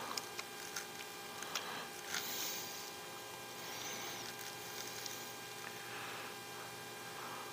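Steady electrical hum, with a few faint clicks and soft rustles as small RC crawler axle parts and a hex driver are handled, most of them in the first two seconds.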